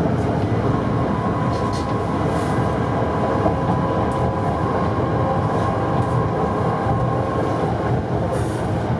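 Tatra C5T5 tram running along its track, heard from inside the car: steady rolling and running noise. A thin steady whine sets in about a second in and fades out near the end.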